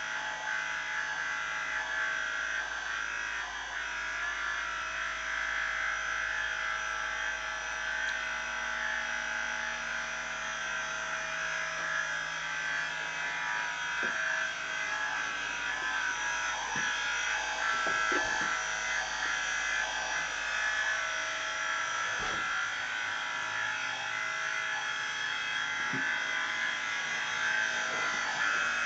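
Small DC electric motor turning a homemade MDF rotating TV stand, running with a steady whine. A few soft knocks come through as the stand moves.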